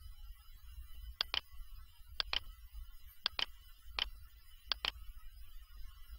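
Quiet pairs of sharp clicks from a computer mouse and keyboard, about one pair a second, over a faint low hum.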